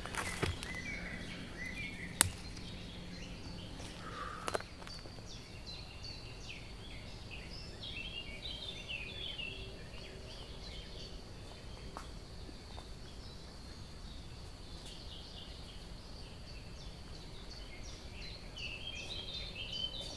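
Woodland birdsong: several small birds chirping and trilling, busiest about halfway through and again near the end, over a faint steady hiss. A few sharp snaps or clicks come in the first few seconds, the loudest about two seconds in.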